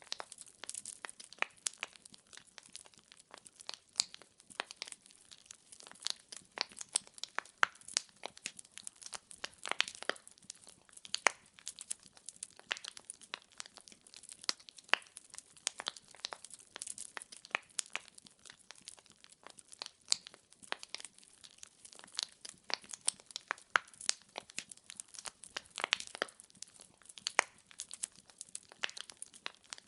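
Wood fire burning, the logs crackling with frequent sharp, irregular pops over a soft hiss.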